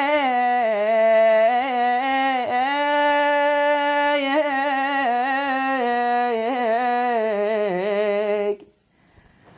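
Male voice singing a long wordless melismatic passage in Iraqi style, holding notes with wavering ornaments and turns. It stops abruptly about eight and a half seconds in, and near silence follows.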